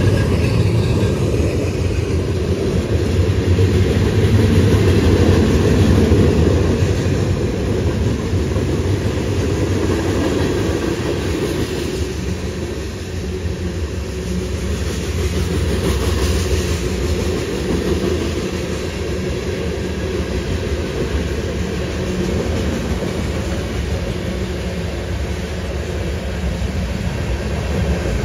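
Freight train rolling past on the track, a steady, loud noise of wheels and cars with no pauses.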